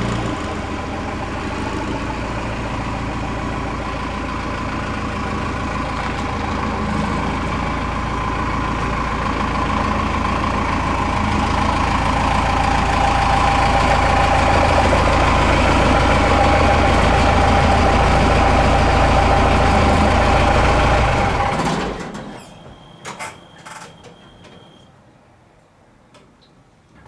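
Ford pickup's diesel engine running steadily as the truck backs in, growing louder as it nears, then shut off about three-quarters of the way through. A few knocks and a short beep follow.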